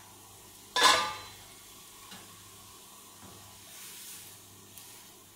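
Chicken pieces sizzling faintly in a nonstick frying pan. About a second in there is one sharp clatter with a brief ring as the pan's glass lid is set aside, followed by a few light clicks of metal tongs turning the chicken.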